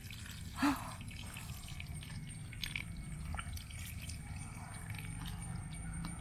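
Faint water sounds, light dripping and splashing, with one short louder splash a little under a second in.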